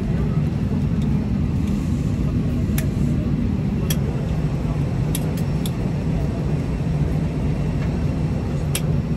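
Steady low rumble of an airliner cabin, the even roar of air and machinery, with a few light sharp clicks scattered through it.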